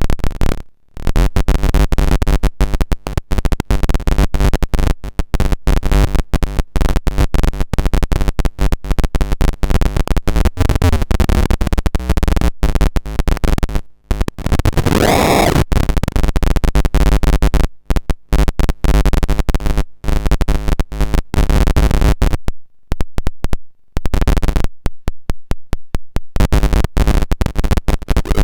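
Paratek "Kosmicheskiy Shum" eurorack module, a Jupiter Storm-style noise source built on square-wave oscillators, putting out harsh buzzing tones that stutter rapidly. A short swooping sweep comes about fifteen seconds in, and the sound drops out briefly a few times.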